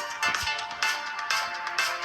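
Electronic music with a steady beat, about two beats a second.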